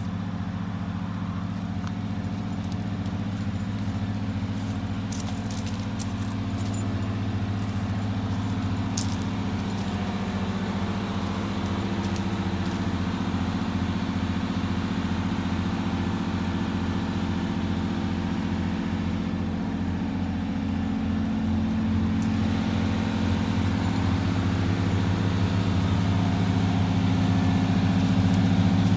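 Engine of a GMC bus conversion idling steadily, growing louder toward the end. A few light clicks sound between about five and nine seconds in.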